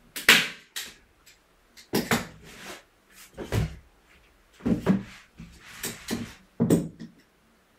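A hand staple gun fires a staple through canvas into a wooden stretcher frame just after the start. Irregular knocks and scrapes follow as the frame is lifted, turned and set back down on a wooden floor and the canvas is pulled taut.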